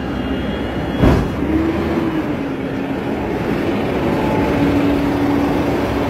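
Garbage truck engine running close by with a steady low rumble and a held droning hum, and a short loud thump about a second in.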